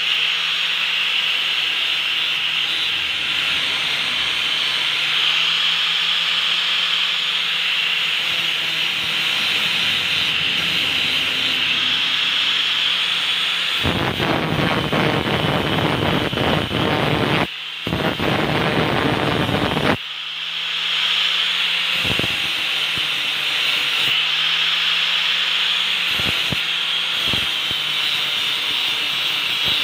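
Electric angle grinder running with a steady high whine, its disc grinding rust off the steel blade of a machete. Past the middle comes a louder, rougher stretch of about six seconds, and then the whine settles back to steady.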